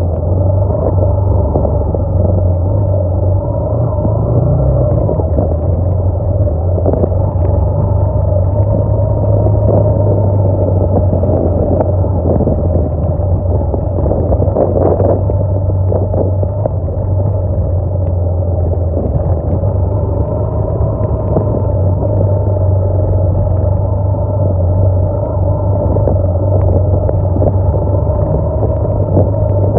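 Motorcycle engine running steadily under way on a rough dirt track: a constant low drone with higher tones that waver slowly as the throttle changes.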